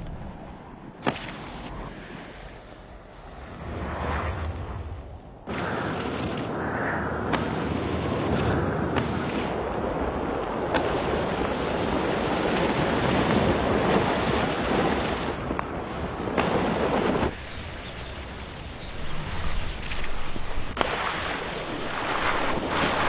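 Rushing noise of wind and water spray from skis skimming fast across water. The noise jumps abruptly in level about five and again about seventeen seconds in, and there is a sharp click about a second in.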